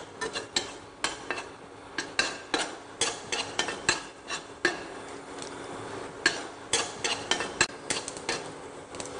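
Mustard seeds spluttering and popping in hot oil in a pan while a spoon stirs and knocks against it: irregular sharp pops and clinks, several a second.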